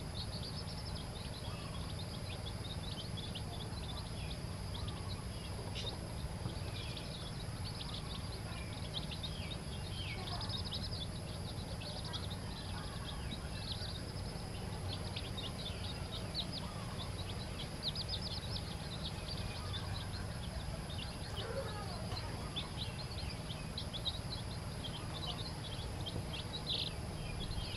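Newly hatched chicken chicks peeping: short, high, falling peeps, often in quick runs, over a steady low hum.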